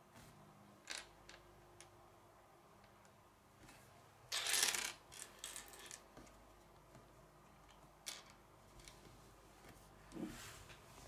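Plastic Lego pieces handled and picked through on a wooden table: scattered light clicks and taps, with a longer clatter about four seconds in.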